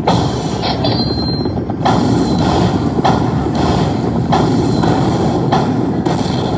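Buffalo Cash slot machine's bonus sound effects as the cash values are added to the winner total: a loud, dense, steady rumble with a burst roughly every half-second to second, and a short high beep about a second in.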